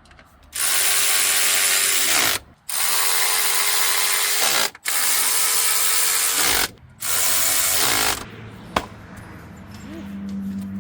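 Power impact wrench run in four bursts of about two seconds each, its motor winding down at the end of each, most likely working on bolts on the engine. A single sharp click follows, then a steady low hum.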